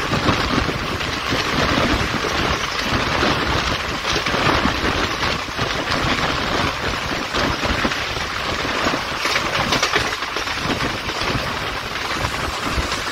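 Passenger train running at speed, heard from on board: a steady rush of wheels on rail mixed with wind blowing past the open coach window.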